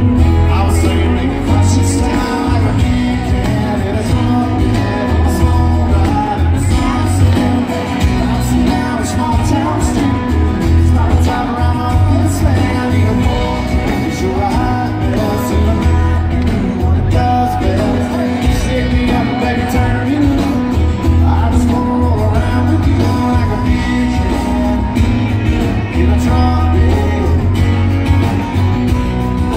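Country rock band playing live: a male lead vocal sings over electric guitars, bass and drums, with a heavy, boomy low end.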